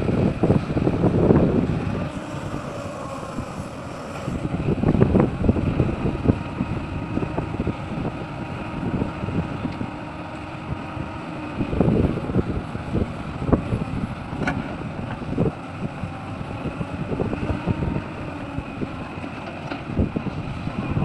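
Sumitomo SH350 hydraulic excavator's diesel engine running steadily while working, swelling in loudness every few seconds, with wind buffeting the microphone and a few short knocks.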